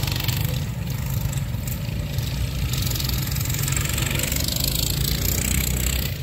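Several box-stock racing minibikes' small single-cylinder engines running as they lap the track, a steady drone.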